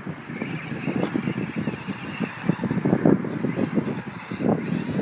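Traxxas Stampede VXL brushless electric RC monster truck driving across grass, its motor running with an uneven, rumbling sound as it speeds up and slows down.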